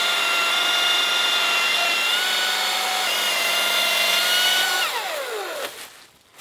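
Electric chainsaw cutting through a cedar stump, its motor whining steadily under load. Near the end the trigger is released and the whine falls away as the motor spins down.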